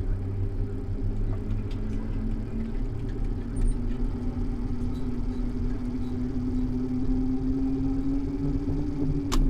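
Urban road traffic: a motor vehicle's engine runs close by, over a steady low rumble, with a hum that slowly rises in pitch through the second half. A couple of sharp clicks come near the end.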